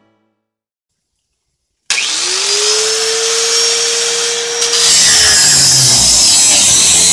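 Angle grinder starting up about two seconds in, its whine rising quickly and holding steady. About three seconds later it bites into sheet metal with a loud, bright hiss, and the whine drops under the load of the cut.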